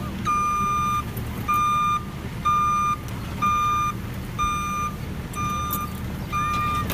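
Heavy machinery backup alarm beeping steadily, about one beep a second, seven times, over the low, steady rumble of the machine's engine.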